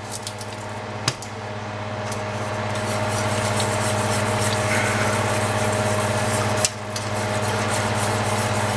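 Wire whisk stirring a thin cream sauce in a stainless steel skillet: a steady swishing that builds over the first few seconds, then holds, with a steady low hum underneath. There are two sharp clicks, about a second in and near the end.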